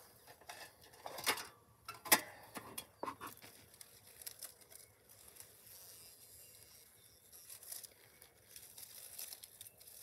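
Beekeeper handling wooden hive boxes and frames among storm debris: a few sharp wooden knocks in the first three seconds, the loudest about two seconds in, then faint rustling and scraping.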